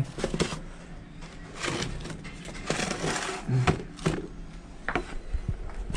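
Boxes and packets being pulled and shifted on a crowded shelf: scraping and rustling with a few light knocks.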